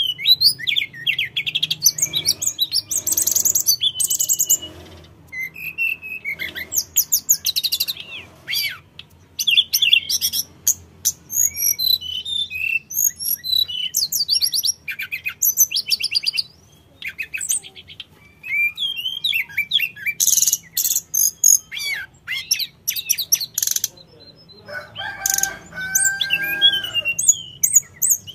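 Hill blue flycatcher (tledekan gunung) in full song: a fast, varied run of high whistles, sweeping notes and chattering trills, broken by a short pause just past the middle.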